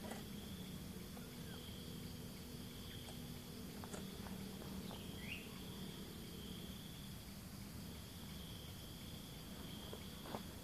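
Insects trilling in the background: a faint high buzz that swells and fades every second or two, over a low steady hum. There is one short rising chirp midway and a few light clicks near the end.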